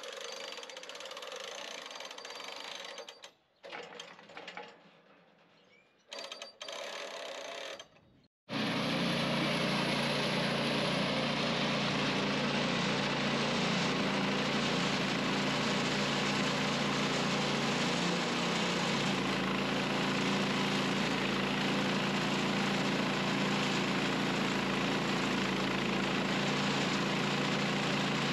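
The Woodland Mills HM130 Max sawmill's engine running steadily at an even level. It comes in abruptly about eight and a half seconds in, after a few short, quieter stretches of mechanical sound.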